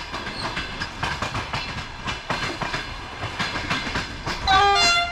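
Train wheels clicking over rail joints, then a loud two-note train horn near the end, its second note lower.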